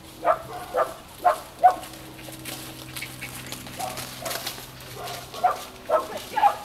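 Dog barking as it runs an agility course: four quick sharp barks in the first two seconds, then four more near the end.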